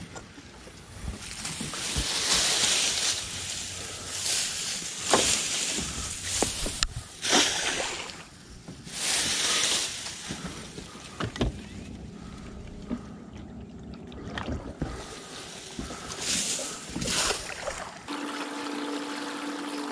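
Leafy cut branches rustling and splashing in short bursts as they are handled and pushed over the side of a boat, with sharp knocks of wood against the hull. Near the end a steady electric hum starts: the trolling motor.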